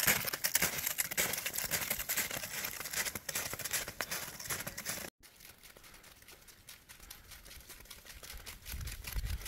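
Snowshoe footsteps crunching on packed snow, close and continuous. About halfway through they cut off suddenly, leaving only faint sound.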